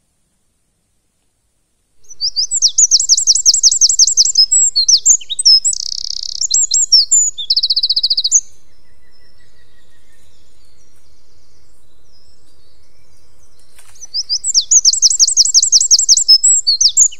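A songbird singing loud, high, rapid trilling phrases. One run of song lasts about six seconds, starting about two seconds in, and a second run starts near the end.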